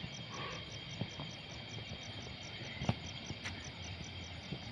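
Crickets and other night insects chirping steadily: a high pulsing trill about five times a second over a steady high ringing tone. A few sharp knocks break in, the loudest about three seconds in.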